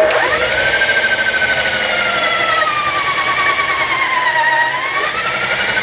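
Electric drill running under load, boring a hole up through a kitchen base cabinet's wooden frame. Its whine sags in pitch as the bit cuts deeper, then rises again near the end.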